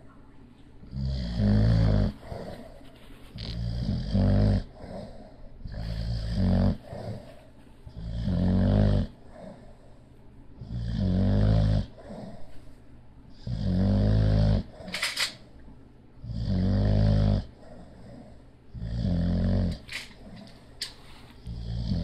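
Sleeping bulldog snoring, one snore about every two and a half seconds, each lasting about a second, with quieter breaths between.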